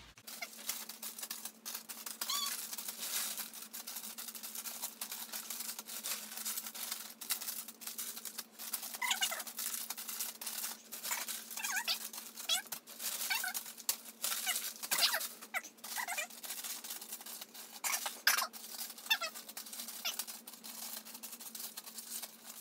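Plastic snack-chip bags crinkling and rustling as they are picked up and spread out across a bed, with a few short high squeaks now and then.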